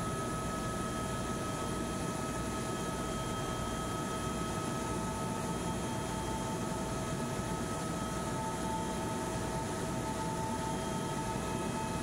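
Helicopter in steady flight heard from inside the cabin: a constant low rumble with several unchanging whining tones above it.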